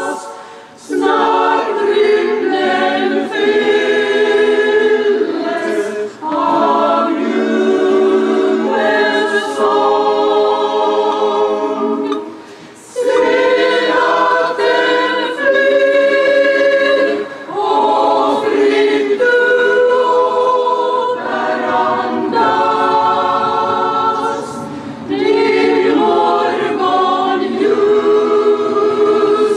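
Mixed choir of women's and men's voices singing a cappella, in held phrases of several seconds with short breaks between them.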